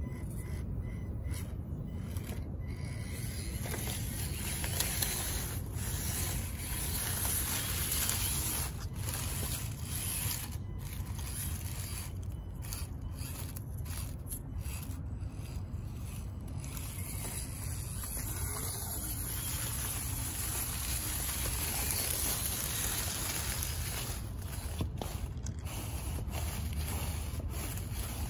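Axial SCX24 mini crawler driving over rocks and dry leaves: its small electric motor and gears running, with many small clicks and scrapes of the tyres and chassis, over a steady low rumble of wind on the microphone.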